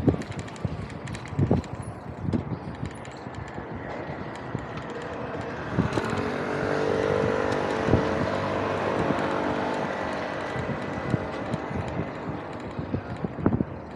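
A motor vehicle passing close by: a steady engine hum that builds to its loudest about seven to eight seconds in and fades away by about ten seconds. Scattered rattles and knocks come before and after it.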